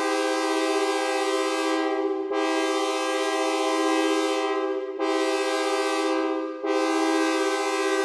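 AudioKit Synth One sawtooth-wave synthesizer holding a chord that imitates a multi-chime train horn: a steady, buzzy, brassy sustained blast. Its brightness fades and the chord re-sounds three times, about two, five and six and a half seconds in.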